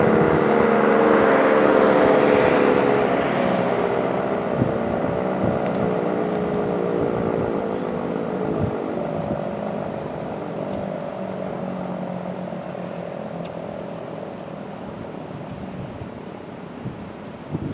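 Sentry 16V1T-B tornado siren winding down at the end of its full-alert steady tone: a single siren note sliding slowly lower in pitch and fading away.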